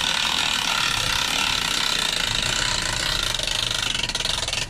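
Hand-cranked boat trailer winch ratcheting in a fast, steady stream of clicks as its strap pulls a Sea-Doo Fish Pro personal watercraft up onto the trailer; the clicking stops suddenly near the end.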